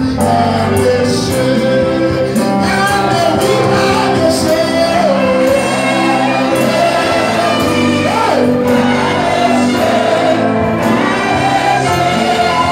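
Loud gospel praise music with voices singing together over sustained instrument backing.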